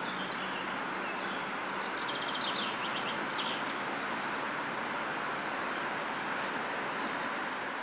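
Small birds chirping over a steady outdoor background hiss, with a quick run of high chirps about two to three and a half seconds in and a few fainter ones later.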